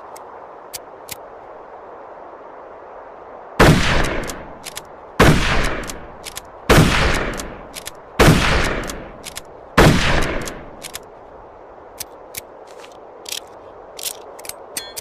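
Mosin-Nagant M91/30 bolt-action rifle (7.62×54mmR) fired five times, about a second and a half apart, each shot echoing briefly. Faint clicks come before and after the volley.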